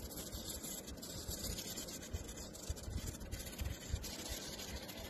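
A crayon scribbling rapidly back and forth on paper, a steady dry scratching as an area is coloured in.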